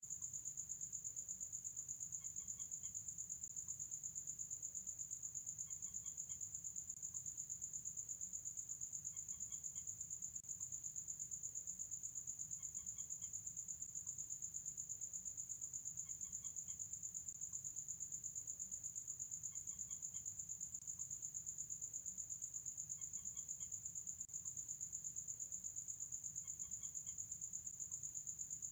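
A steady, high, continuous trill of night insects, most likely crickets. Under it, a faint short call of a few quick notes repeats regularly about every three and a half seconds: the night bird that calls around midnight.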